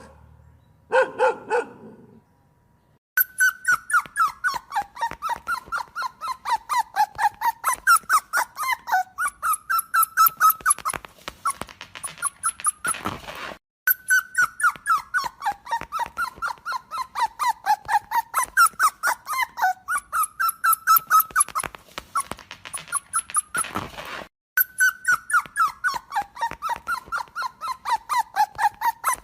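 A dog gives a short bark about a second in. After a brief pause it yelps and whines in rapid high-pitched squeals, several a second, rising and falling in pitch. The run stops briefly twice and starts again in the same pattern.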